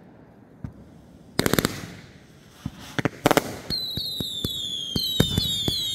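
Consumer fireworks going off: a quick volley of sharp bangs about a second and a half in and another about three seconds in. From near four seconds on comes a string of high whistles, each falling in pitch, among sharp cracks.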